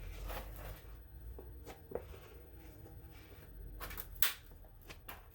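Faint scraping with a few light taps from a spreader working finishing putty onto a car body panel.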